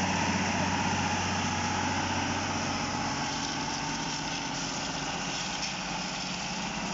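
Engine of an SQRS/PQRS track-relaying gantry machine running steadily at idle, a little louder at first.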